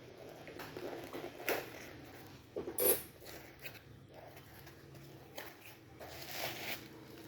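Packaging handled during an unboxing: intermittent rustling and crinkling with small clicks and knocks, the loudest a sharp crackle about three seconds in.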